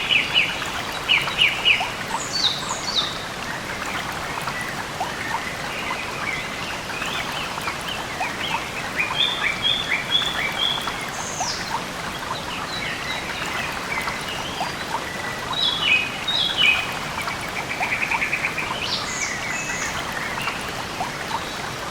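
Birds chirping and trilling in repeated short calls over a steady rushing background noise.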